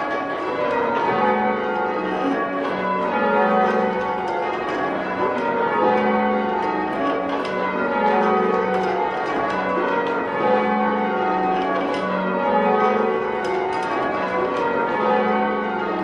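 Church tower bells rung full-circle in change ringing: a steady, even succession of overlapping bell strikes, each bell ringing on into the next, heard from the ringing chamber below the bells.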